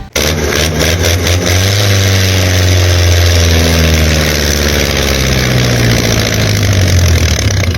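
An engine running steadily with a strong low hum and a few clicks in the first second or so, its pitch sagging slowly; the sound starts and cuts off abruptly.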